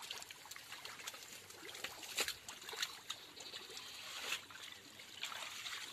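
Shallow muddy water trickling and splashing as a bamboo-framed hand net is worked through it, with irregular small splashes and drips, a little louder about two seconds in and again past the middle.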